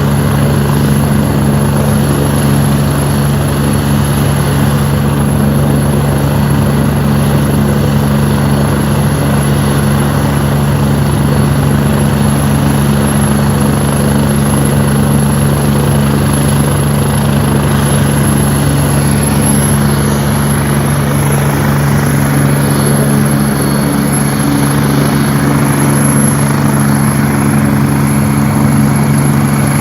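Medical helicopter's turbine engines and rotor running steadily, a low drone with a thin high turbine whine over it.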